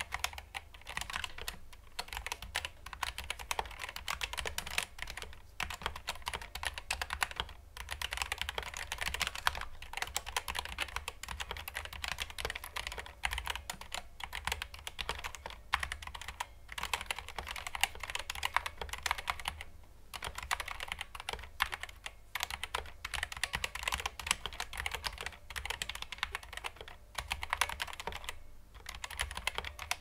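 Steady typing on a Gigabyte Aorus K9 Optical keyboard with Flaretech Red linear optical switches and ABS keycaps: a dense run of key clacks, broken by short pauses every few seconds.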